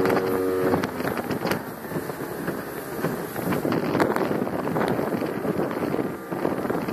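Motorboat running under way: the engine's steady tone is clear for about the first second, then is mostly buried under wind buffeting the microphone, with scattered short pops.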